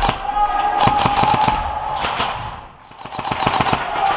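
Airsoft guns firing in rapid full-auto bursts: fast clacks over a steady whine, breaking off briefly about three seconds in, then starting again.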